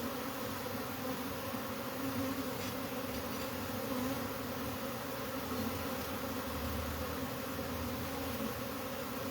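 A mass of honeybees from a disturbed colony buzzing steadily in the air, a continuous hum with no pauses.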